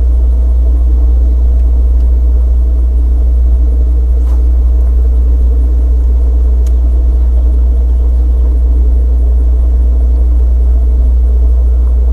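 Bass boat under way: the outboard motor and hull give a loud, steady low rumble.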